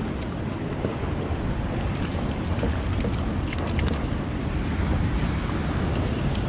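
Wind buffeting the microphone over water lapping around a small boat, a steady rushing noise, with a few faint clicks about halfway through.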